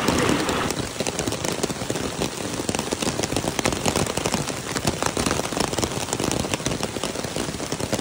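Rain falling steadily: a dense, even pattering of many drops.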